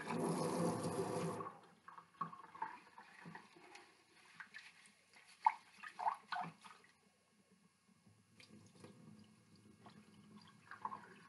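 Kitchen tap running into a rice cooker pot full of rice and water, shut off about a second and a half in. Then the rice is swished by hand in the rinse water with small splashes and a few louder sloshes, and near the end the starchy water trickles off as the pot is tipped to drain.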